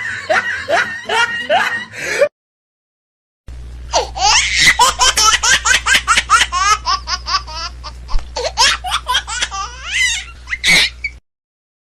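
Two stretches of hearty laughter separated by an abrupt silence of about a second. The second stretch is high-pitched, rapid and rising and falling, over a steady low hum, and it stops short near the end.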